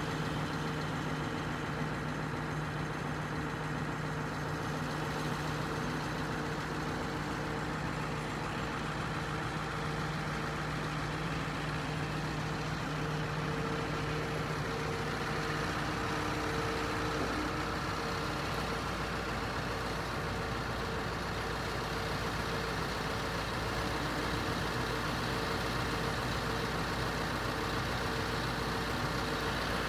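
Scania R500's V8 diesel engine running steadily while driving the loader crane's hydraulics as the boom moves. The steady hum changes tone about halfway through.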